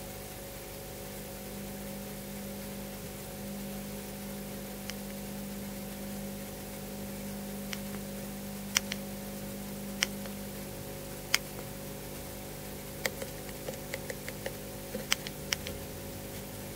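Steady electronic hiss and hum, with sharp clicks of a finger pressing the buttons of a GoPro HERO3+ Black action camera, a few from about halfway and then a quick run of them near the end.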